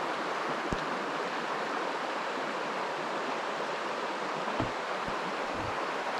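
River water flowing, a steady rushing, with a couple of low bumps, one near the start and one about two-thirds through.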